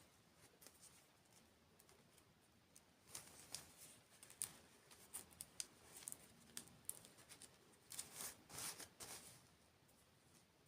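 Faint close-miked chewing and mouth sounds, a run of soft crisp clicks and crackles from about three seconds in to near the end.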